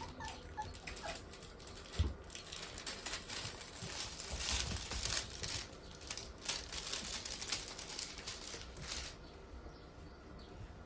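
Puppies scuffling over plush toys on a wooden floor: a run of rustling, crinkling and pattering, with a single thump about two seconds in. It dies down near the end.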